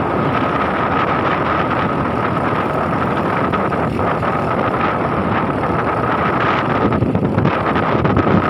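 Engine of a moving road vehicle running steadily, mixed with road and wind noise on the microphone, with a steady whine-like tone over it.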